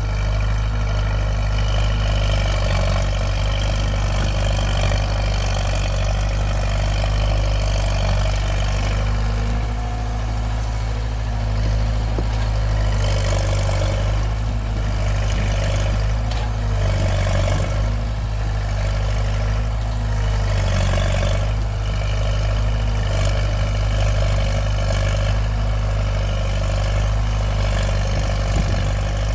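Heavy engine running steadily with a constant low drone.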